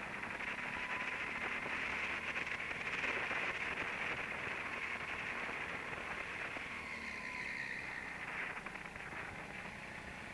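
Go-kart heard from onboard while lapping: a steady rushing hiss with a faint whine that shifts in pitch through the corners.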